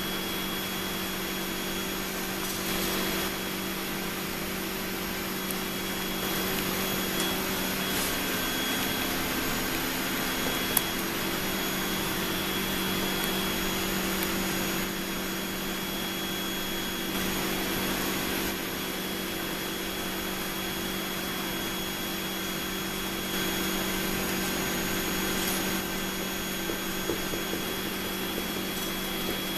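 Steady drone of the cone calorimeter's exhaust blower: a hum with a thin high whine over a rushing air noise. A single sharp click comes about eleven seconds in.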